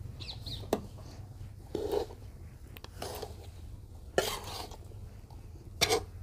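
Metal spatula scraping and clinking against a steel karahi as roasted wheat flour and khoa are stirred together. There is a short scrape every second or so, some with a sharp metallic clink.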